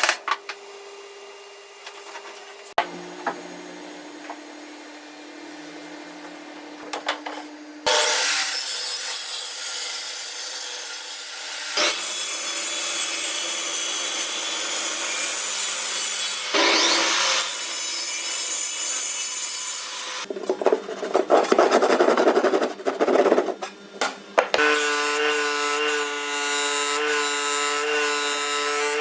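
Power tools working wood. After a quieter stretch with a steady low hum, loud cutting and sanding passes come one after another from about eight seconds in. In the last few seconds a tool motor runs with a steady whine.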